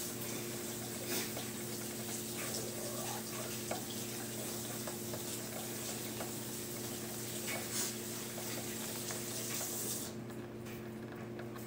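Hamster gnawing on the metal bars of its cage: small irregular clicks and scrapes over a steady low hum and hiss, the hiss dropping away about ten seconds in.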